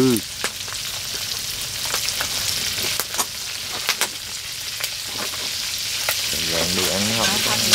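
Rat meat frying in a pan: a steady sizzle with scattered crackling pops.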